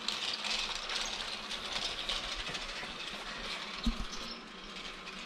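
Battery-powered toy train running along plastic track, a steady clatter of small clicks from its motor and wheels, with a single thump about four seconds in.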